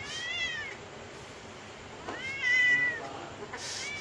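Red Persian cat meowing twice: a short rising-and-falling meow, then a longer, louder one about two seconds in.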